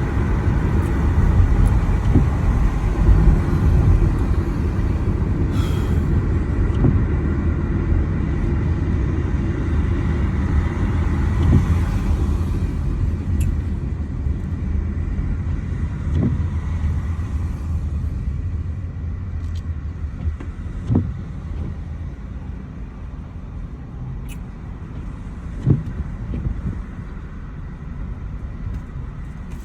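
Steady low rumble of road vehicle noise, slowly fading, with a few faint knocks.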